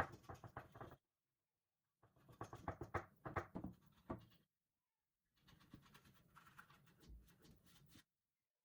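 Quick scratching and rubbing strokes in three bursts, with stretches of silence between them.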